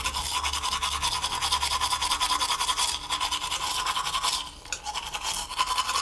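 Toothbrush scrubbing rapidly back and forth over teeth, a fast rasping with a short break about four and a half seconds in.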